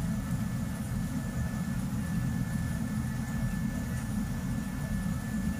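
Steady low mechanical hum with a thin, faint high whine held over it.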